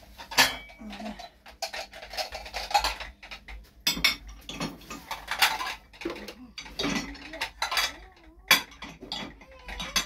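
Ceramic plates and bowls clattering and clinking as they are handled, stacked and slotted into a dishwasher rack: a quick, irregular run of sharp knocks.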